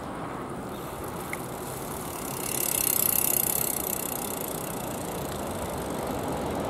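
Level crossing's classic electric warning bell ringing steadily. Bicycles pass close by, louder for about a second from two and a half seconds in.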